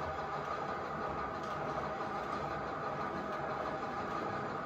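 H0-scale model freight train running along the layout: a steady, even hum.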